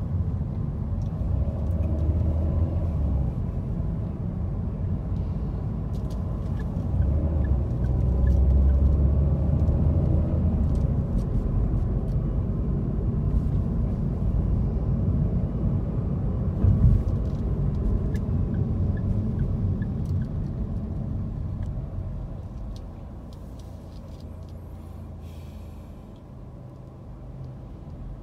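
Car cabin noise in city traffic: a steady low rumble of road and engine. About three-quarters through it eases off as the car slows and stops at a red light, leaving a quieter steady low hum.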